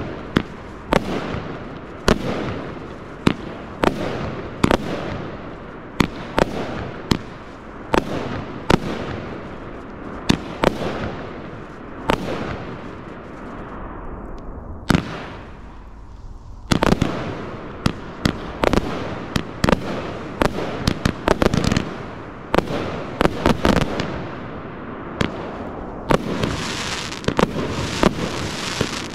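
An 80-shot, 25mm consumer firework barrage cake (Pyroworx 'Rapture') firing shot after shot, each a sharp report in the sky, at roughly one to two a second. After a brief lull about halfway, the shots come faster. In the last few seconds the reports merge into a dense, continuous crackle.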